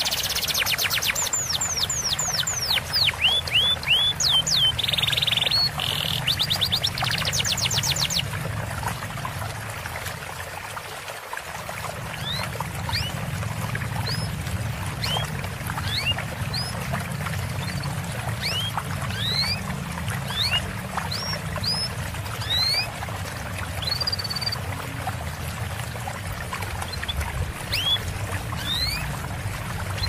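Small songbirds singing over a steady trickle of running water: quick runs of falling high notes for the first eight seconds, then, after a short dip, thin rising chirps about once a second.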